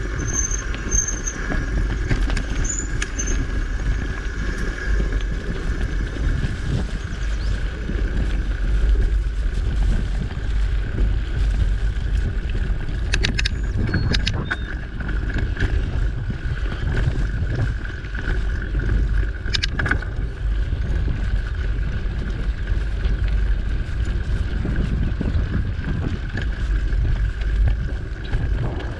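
Mountain bike rolling fast along a dirt singletrack: wind buffeting the microphone and tyre rumble, with a steady higher hum from the moving bike. A few sharp rattles from the bike come around halfway and about two-thirds through.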